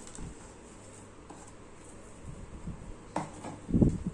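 Soft handling noises as fried onions are tipped from a plastic bag and sprinkled by hand over the rice in the cooker. There is a sharp click a little after three seconds and a dull thump just before the end, the loudest sound.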